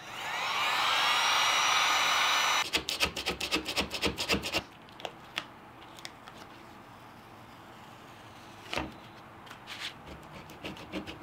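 A heat gun is switched on: its fan whines up in pitch as it spins up and blows steadily, then it cuts off about two and a half seconds in. Then a hand scraper scrapes the heat-softened pad off the bottom of a planter saucer in quick strokes, with a few scattered knocks, and there is more scraping near the end.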